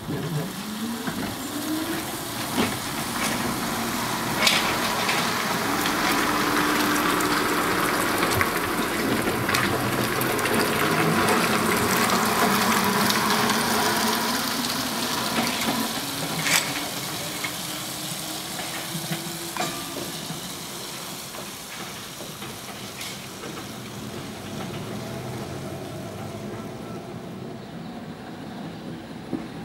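London Transport double-deck trolleybus driving past. Its electric traction motor whines and rises in pitch as it pulls away, and the running noise swells and fades as it passes, with a few sharp clicks.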